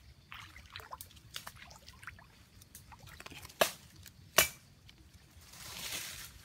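Small splashes and drips of water, with two sharp splashes or knocks about three and a half and four and a half seconds in, then a longer rush of water near the end.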